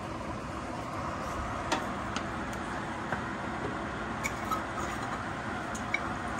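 Rice frying in a hot stainless-steel pan, a steady sizzling hiss, with a few light clicks of a spoon stirring it.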